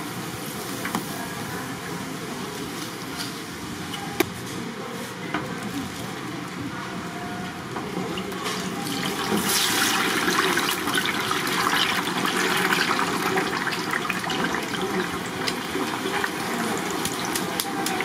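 Fish cakes frying in a vat of hot oil: a steady crackling sizzle that grows louder about nine seconds in, with one sharp click about four seconds in.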